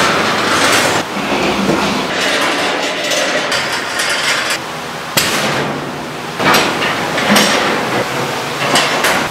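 Steel sheep-handling gates and panels clanging and rattling as they are moved and set up, with several sharp metal knocks in the second half.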